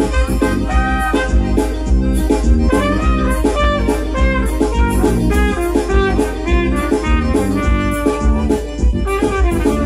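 Trumpet playing a melody live, amplified through a microphone, over an accompaniment with a steady beat and bass.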